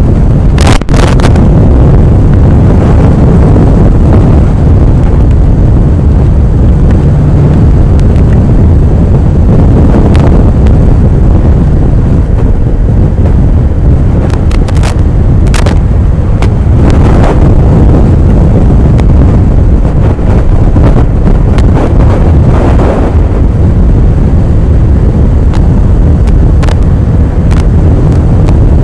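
Strong wind buffeting the microphone of a moving motorcycle, a heavy steady rumble with engine and road noise underneath and occasional sharp crackles from gusts hitting the mic.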